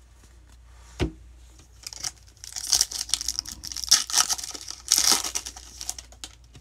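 Foil wrapper of a 2020 Bowman baseball card pack being torn open and crinkled: a run of sharp, crackly rips from about two seconds in until past five seconds, after a single knock about a second in.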